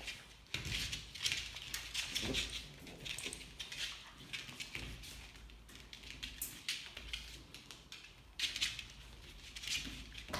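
Hungarian Vizsla puppies scuffling and playing, their claws pattering and scratching irregularly on a hard floor.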